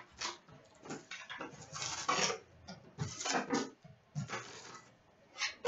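A cardboard box of hockey cards being opened and its wrapped card packs pulled out and stacked, heard as irregular rustling and scraping of cardboard and pack wrappers.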